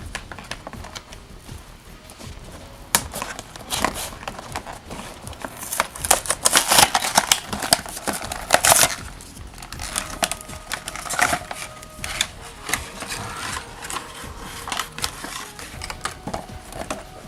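Toy action-figure packaging being handled and opened: cardboard and plastic rustling and crinkling with many small clicks and taps, loudest in a run of rustles about six to nine seconds in.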